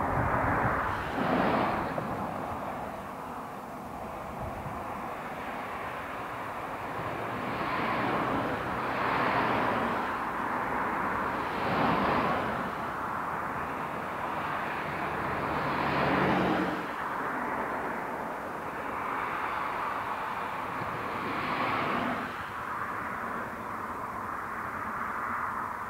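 BR Standard Class 4MT 2-6-4 tank steam locomotive working its train in the distance, a steady rumble that swells louder every few seconds.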